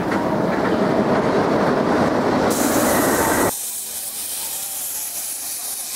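Narrow-gauge steam locomotive up close: a loud, steady rushing noise beside its running gear breaks off abruptly about three and a half seconds in. A steady high hiss of steam blowing from the locomotive's cylinder cocks follows.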